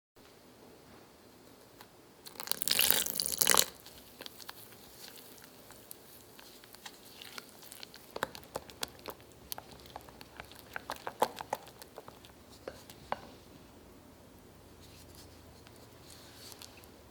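Plastic biscuit packet torn open with a loud rip about two seconds in, followed by irregular crinkling and small sharp crackles as the wrapper and biscuits are handled.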